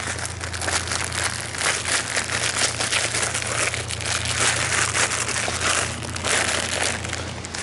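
Dry leaf litter and soil rustling and crunching as a hole is dug out by hand, a dense irregular crackle with no pauses.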